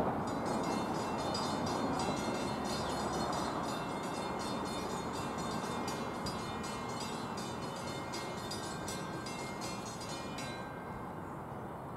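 A train's rumble fading away after it has passed. Over it, a grade-crossing bell rings rapidly, about three strokes a second, and cuts off near the end.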